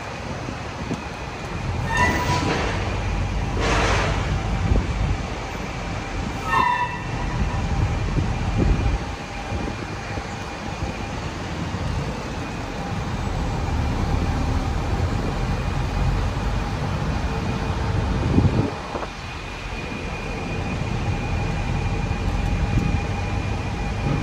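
Open-top tour bus running through traffic, heard from its upper deck: a steady rumble of engine and road, with two short noisy bursts about two and four seconds in and a brief horn-like tone a little later.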